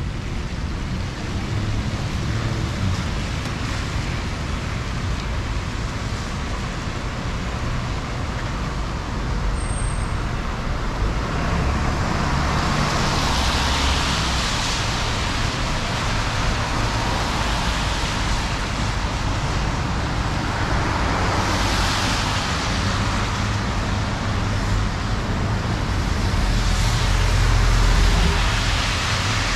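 Cars passing on a rain-soaked city street, their tyres hissing on the wet road in three swells, the last near the end and loudest, over a steady rain hiss and low traffic rumble.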